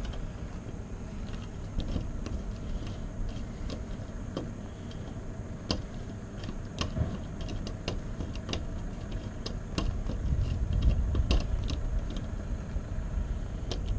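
Lock pick and tension wrench working the pins inside a door lock cylinder, giving irregular light metallic clicks and ticks. A low rumble runs underneath and grows louder in the last few seconds.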